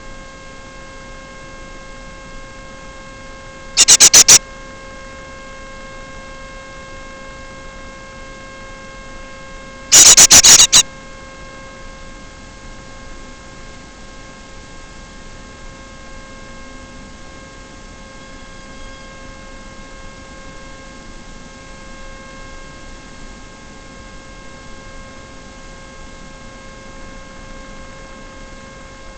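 Steady electrical hum over a hiss, broken twice by short, very loud bursts of rapid crackling: one about four seconds in, a longer one about ten seconds in.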